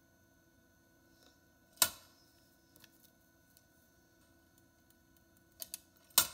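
Eggs clicking against the metal pan of a vintage egg scale as they are set on and lifted off: one sharp click about two seconds in, a couple of light taps near the end, then another sharp click.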